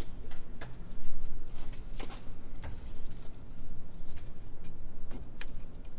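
Scattered light clicks and taps of plastic intake parts being handled and fitted together by hand, at irregular intervals over a steady low hum.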